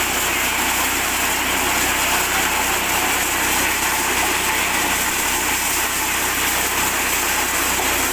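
Mini corn sheller running steadily, driven by its 8 hp petrol engine, with a constant hum and rattle and no change in speed.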